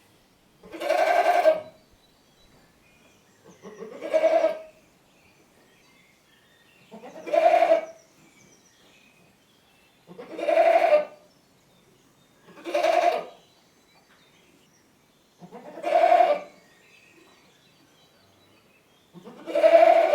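A goat bleating, seven separate calls of about a second each, coming roughly every three seconds with quiet in between.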